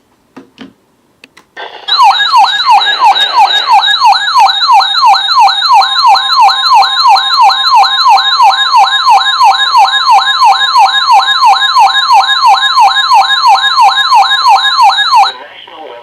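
Weather alert radio's siren-style alarm going off for an incoming tornado warning: a loud electronic tone sweeping up in pitch over and over, about two to three sweeps a second, after a few short blips. It starts about two seconds in and cuts off abruptly near the end.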